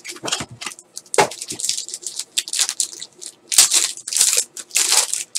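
Foil wrapper of a trading-card pack being torn open and crinkled: a run of irregular quick rips and crackles.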